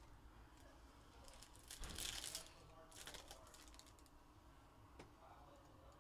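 Faint rustle of trading cards being handled and sorted by hand on a table, in two brief bursts about two and three seconds in, with a small click about five seconds in.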